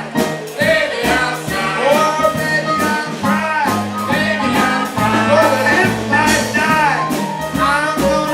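Live band music with singing over bass and drums.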